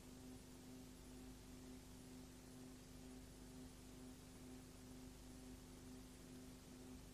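Near silence: a faint, steady low hum with an even hiss.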